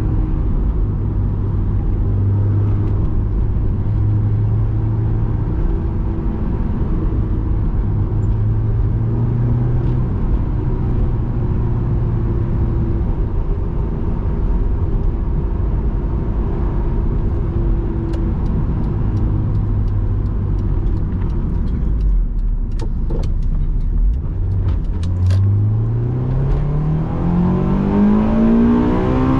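Honda S2000's JDM F20C four-cylinder engine heard from inside the cabin with the soft top up, running at steady revs while cruising. About three-quarters of the way through the revs dip, then climb steadily under acceleration toward the end.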